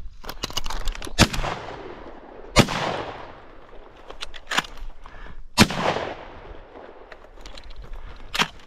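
Shotgun shots at flying ducks: three loud shots about a second, two and a half and five and a half seconds in, each followed by a long rolling echo, with several fainter, shorter shots between them.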